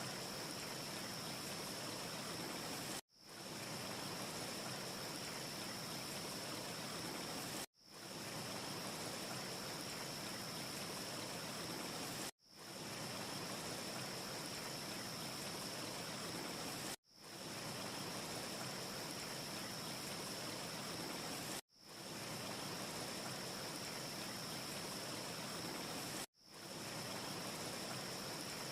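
Looped wind ambience: a steady, even rushing hiss with a faint high tone running through it, with no fireplace crackle to be heard. It cuts out abruptly and fades back in about every four and a half seconds, six times over, the seams of a short repeating loop.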